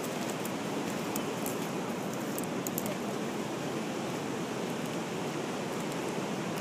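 Steady rush of river water pouring over a weir, an even noise that does not change.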